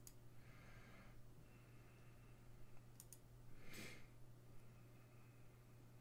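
Near silence: room tone with a steady low electrical hum, a few faint clicks, and a short breathy exhale a little under four seconds in.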